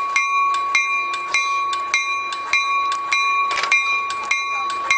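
A railway warning bell ringing steadily, with rapid, even strikes and a sustained ring between them, while a Coaster commuter train stands at the station platform.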